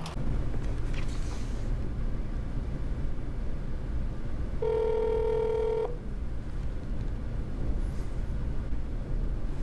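Outgoing phone call ringing on a smartphone's speakerphone: one ringback tone about halfway through, over a steady low hum from the line.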